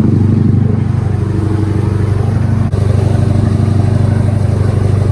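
A motor engine running loudly at a steady, constant speed.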